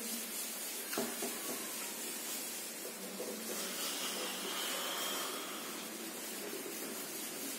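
Handheld whiteboard eraser wiping marker off a whiteboard: a steady rubbing hiss, with a single knock about a second in.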